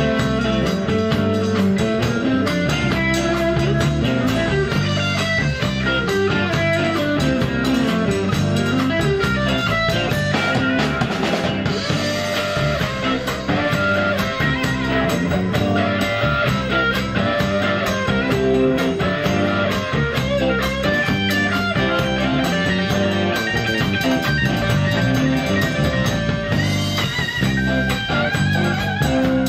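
Live band playing an instrumental passage: a Telecaster-style electric guitar played over electric bass and drums, with a steady beat.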